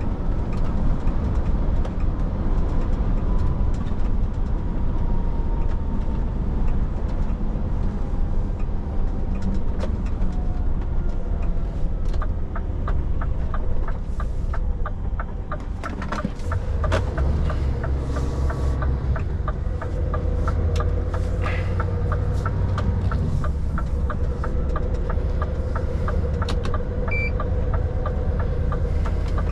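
A truck's diesel engine and road noise run steadily from inside the moving cab, the low rumble growing stronger about halfway through. From about twelve seconds in, a fast, even ticking of roughly three clicks a second runs over it.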